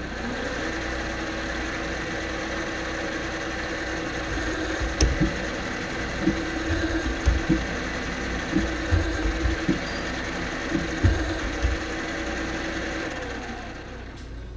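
Benchtop milling machine spindle spinning up and running steadily as it drills metal clevis blanks, with a series of short low knocks in the middle as the drill works into the parts. It winds down a second or so before the end.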